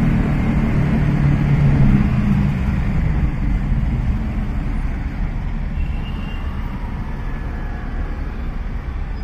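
Car's engine hum and road rumble heard from inside the cab in slow city traffic, with a deeper engine drone in the first two or three seconds that then fades.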